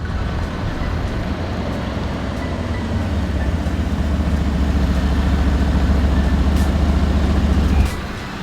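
Mercedes-AMG GLC 63 S's 4.0-litre twin-turbo V8 running with a deep, steady rumble. It grows louder from about three seconds in, then drops off sharply near the end.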